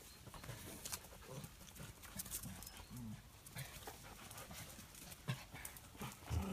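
Small dogs and puppies moving about on paving: faint short grunts and light taps, with a slightly sharper tap about five seconds in.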